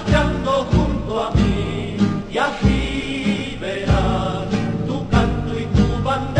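A marching song sung by a group of voices over a steady heavy beat, about three beats every two seconds.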